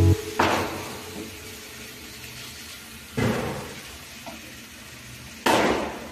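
Wooden spatula knocking and scraping in a non-stick frying pan of chicken pieces: three sudden knocks a couple of seconds apart, each fading quickly, over a faint steady hiss.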